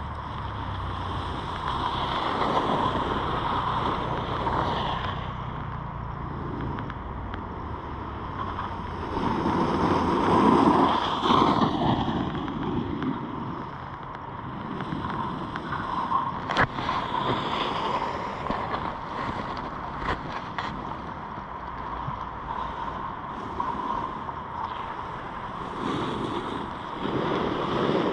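Skis carving and scraping over groomed snow, swelling with each turn, with wind rushing over the microphone. A few sharp clicks come in the middle.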